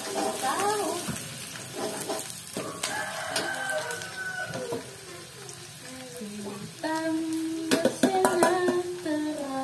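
Chopped onions sizzling and bubbling in hot oil in a wok, with a few sharp metal clinks of the spatula against the pan.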